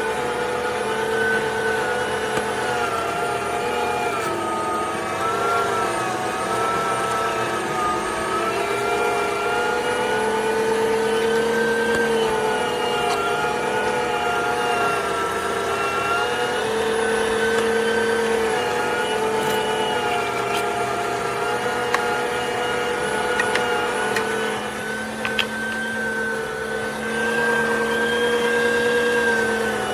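STX Turboforce electric meat grinder's motor and gearbox running steadily after reassembly, a continuous whine whose pitch wavers slightly up and down.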